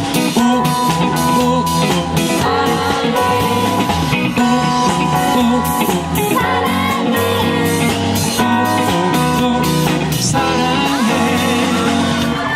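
Live pop-ballad band music with electric guitar and drum kit, playing an instrumental break between sung lines.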